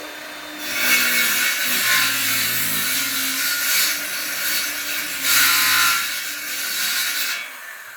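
Circular saw cutting into a wooden board: the blade's rushing noise swells and eases several times as it is pushed through the wood in uneven bites, then stops shortly before the end.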